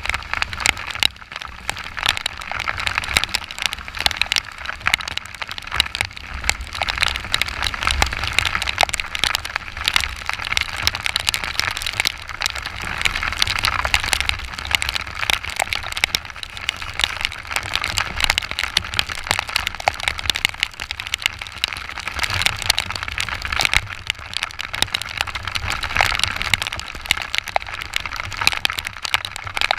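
Heavy rain drumming on an action camera's housing on a moving motorcycle: a dense, steady crackle of countless drop impacts over a low rumble.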